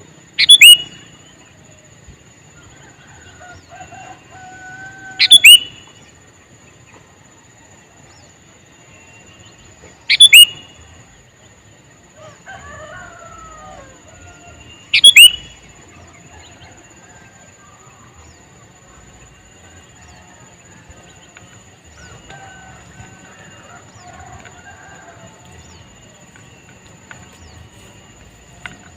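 Male sooty-headed bulbul giving a loud, short, sharp call four times, about five seconds apart, in the first half. Fainter softer warbling of other birds and a thin steady high whine run underneath.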